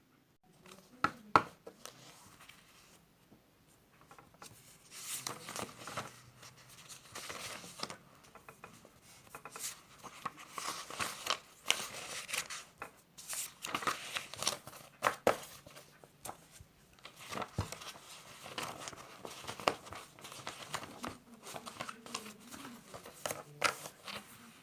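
Paper rustling and crinkling with scattered sharp clicks and taps as study materials are handled at a desk.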